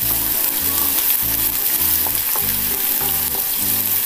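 Chopped onions sizzling in hot oil in a nonstick kadai, stirred with a wooden spatula: a steady frying hiss.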